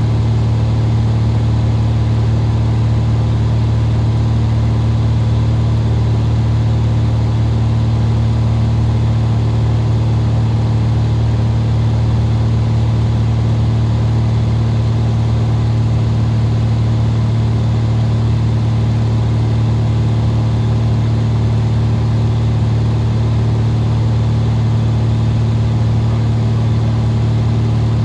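Cabin noise of a Cessna RG single-engine piston airplane in flight: the engine and propeller drone steadily with a strong low hum, unchanging throughout.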